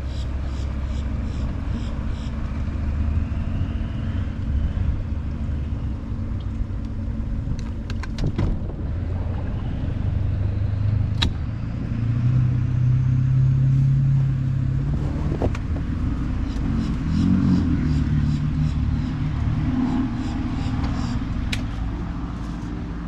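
Outboard motor of a StarCraft SVX-171 deck boat running at low speed while docking, the throttle worked up and down: the engine note rises and gets louder for a few seconds around the middle and again near the end. A few sharp clicks stand out over the engine.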